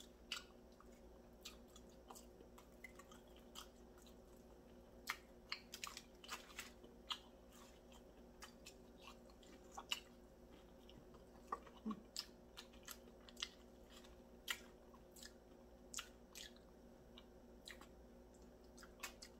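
Close-up chewing, lip smacking and sucking as a person gnaws meat off fried chicken drumstick bones: irregular soft wet clicks and smacks, a few louder than the rest, over a faint steady hum.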